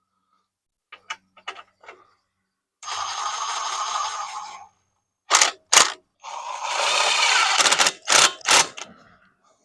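Hands working on a mini bike engine's wiring and parts: a few light clicks, then two longer rasping scrapes, each followed by a pair of sharp knocks.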